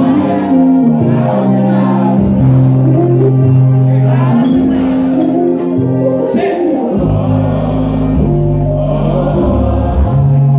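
Live music: a man singing over sustained keyboard chords, with a deep bass coming in about seven seconds in.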